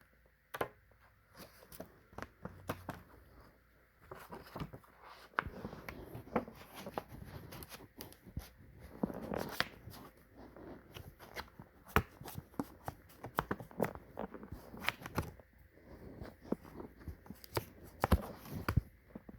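Hands handling coin holders and a coin album: scattered sharp clicks and taps with bouts of rustling.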